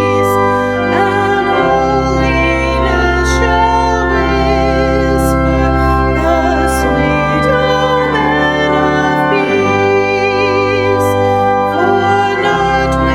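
Organ music: held chords over a bass line that moves every few seconds, with a wavering melody line on top.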